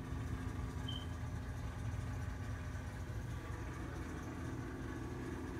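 Steady low background hum with a few steady low tones, and a short faint high beep about a second in.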